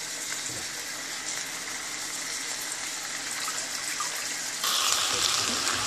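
Steady sizzling hiss from a hot wok, with water trickling off wet boiled noodles as they are lifted from cold water and dropped into it. The hiss steps abruptly louder about four and a half seconds in.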